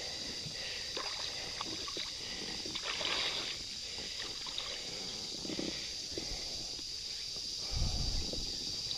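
Water sloshing and small splashes around a float tube as a large black bass is played on a fly rod, with a louder splash about three seconds in and a low rumble near the end. A steady high insect drone runs underneath.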